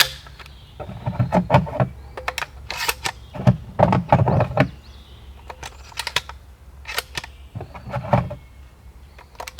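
Close-up clatter of clicks and knocks, in three bunches, as gear is handled.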